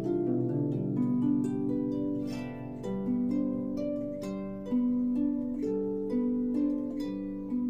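Harp playing a ringtone melody: plucked notes that ring on and overlap, in a slow, flowing line over lower sustained notes.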